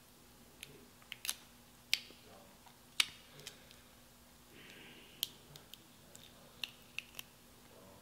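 Crab shell cracking and snapping as it is broken apart and picked at by hand: about a dozen sharp, irregular clicks, with a short rustle about four and a half seconds in.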